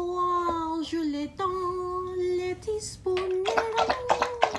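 A high voice singing long, held notes. About three and a half seconds in, a dog starts lapping water from a bathtub, with quick wet laps under the singing.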